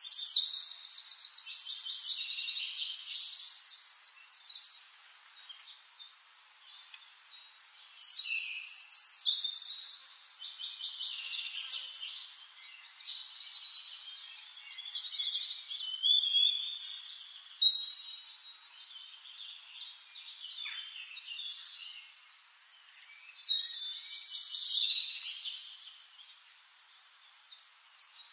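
Birds singing: high chirps and fast trills that come in louder bursts every several seconds, with no low sounds beneath them.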